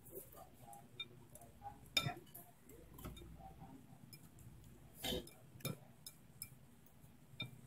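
Chopsticks and ceramic soup spoons clinking and tapping against ceramic noodle bowls while eating: scattered light clicks, the sharpest about two seconds and five seconds in.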